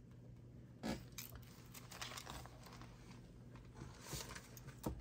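Paper cash and envelopes being handled: faint rustling and crinkling with a few soft taps, the clearest about a second in and just before the end.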